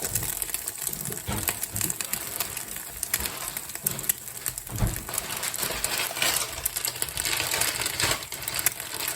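Scrambled eggs sizzling in a frying pan, with many irregular light clicks and a few louder knocks, as if from a utensil against the pan.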